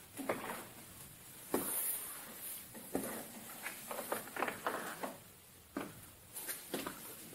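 Footsteps crossing the room: a string of irregular knocks and short scuffs.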